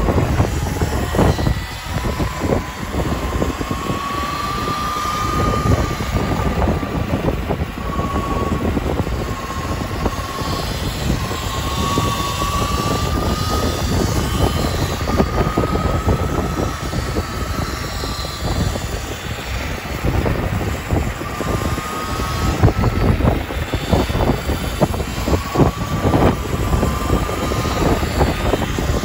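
Wind buffeting the microphone of a moving rider, with a steady high electric-motor whine that drifts slowly up and down in pitch.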